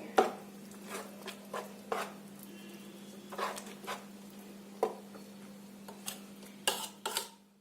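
A spoon stirring thick, wet oats and gram-flour batter in a bowl, with scattered light clinks and scrapes against the bowl, over a faint steady hum.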